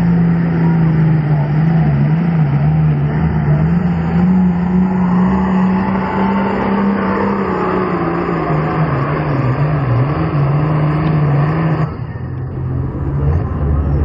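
Turbocharged diesel pulling tractor at full throttle hauling a weight-transfer sled, its engine note wavering up and down under load. About twelve seconds in, the engine note drops off sharply as the pull ends, leaving a lower rumble.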